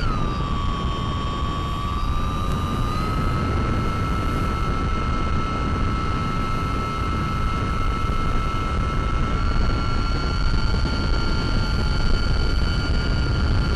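Brushless motor of a Mini Talon FPV plane (Sunnysky 1240kv driving an 8x6 propeller) whining in flight over a steady rush of wind noise. Its pitch drops as the throttle eases at the start, then steps up slightly about three seconds in and again near ten seconds.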